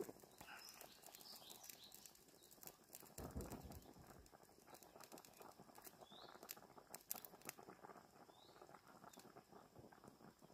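Near silence: faint outdoor ambience with light crackling, a dull low thump about three seconds in, and a couple of short high chirps later on.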